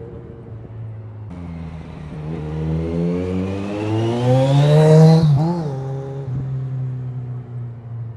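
Kawasaki Z1000's inline-four engine through a Vance & Hines slip-on exhaust, accelerating with revs climbing to a loud peak about five seconds in, then the pitch drops sharply and it runs on at a lower, steadier note.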